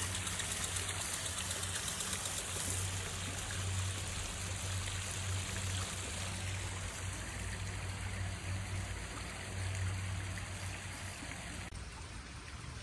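Small backyard pond waterfall splashing steadily, water spilling over stacked stones into a koi pond. It turns quieter shortly before the end.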